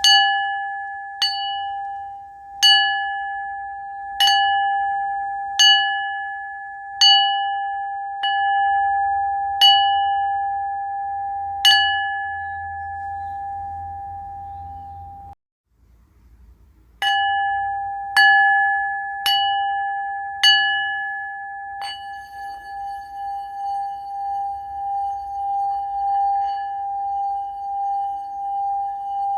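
Singing bowl struck again and again, about one strike every second and a half, each strike ringing out in a clear tone with higher overtones. The sound cuts off abruptly about halfway through and comes back after a second or so with more strikes. It then rings on with a gently pulsing, wavering tone.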